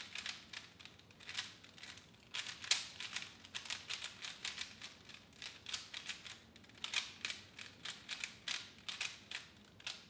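A 3x3 Rubik's cube being turned rapidly by hand during a speedsolve: a fast, irregular run of plastic clicks and clacks from the layers turning, several a second, with a short pause about two seconds in.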